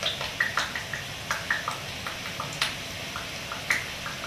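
Palm sugar and fish sauce seasoning liquid simmering in a nonstick wok: a faint steady hiss with irregular small pops and crackles as bubbles burst.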